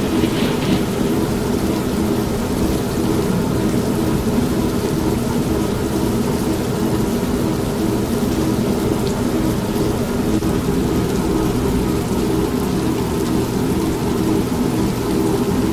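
Steady heavy rain mixed with the low rumble of thunder and the continuous running hum of an old manual washing machine.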